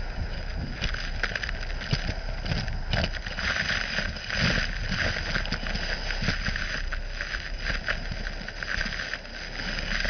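Gutter vacuum system running: a steady rush of suction air through the pole and hose, with irregular clicks and rattles as gutter moss and debris are sucked up.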